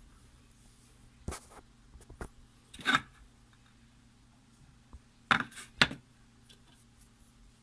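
A handful of short scrapes and clicks from something being handled, two close together about two-thirds of the way through, over a faint steady hum.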